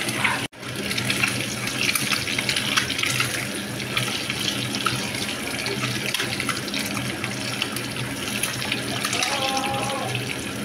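Whole boiled eggs frying in hot oil in a pan, stirred with a wooden spatula: steady sizzling full of small crackling spatters. The sound drops out briefly about half a second in.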